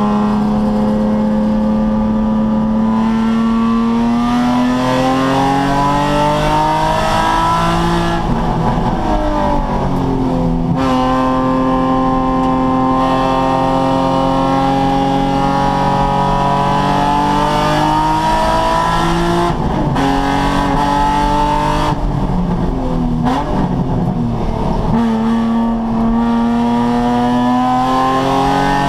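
Nissan 350Z's V6 engine under hard track driving: the revs climb steadily, drop sharply twice, about ten seconds in and again a little past twenty seconds, and climb again after each drop.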